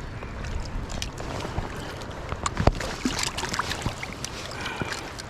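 Steady rush of river water, with scattered small clicks and knocks and one sharper knock a little under three seconds in.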